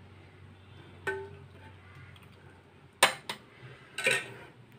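Stainless-steel tableware clinking: a few sharp metallic clinks of a ladle against a steel bowl and plate, starting about three seconds in, after a quiet stretch with a faint hum.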